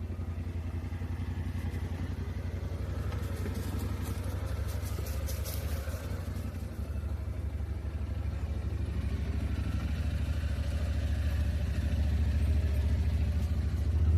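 A vehicle engine running steadily at low speed, a low pulsing drone that grows somewhat louder near the end, with some faint clicking around the middle.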